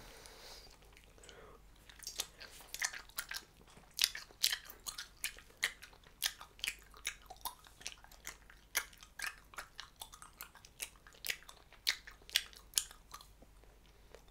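Hubba Bubba bubble gum being chewed close to the microphone: a steady run of sharp, clicking chewing sounds, about three a second, starting about two seconds in and stopping near the end.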